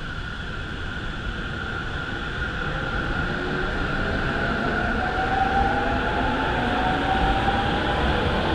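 Chuo-Sobu Line local electric train pulling out past the platform. Its motor whine rises slowly in pitch as it gathers speed, and the wheel-and-rail noise grows steadily louder.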